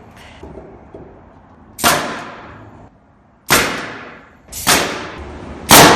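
Nails being driven into wooden floor joist blocking: five loud, sharp bangs at irregular intervals, two of them close together, each ringing out briefly afterwards.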